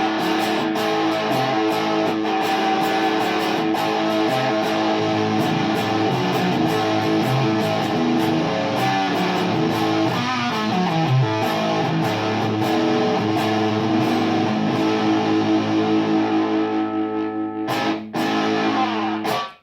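Electric guitar played through a Sola Sound fuzz pedal with a Tone Bender-style fuzz circuit. Chords ring with long sustain, with a descending run about halfway through. The playing breaks off briefly near the end, then stops abruptly.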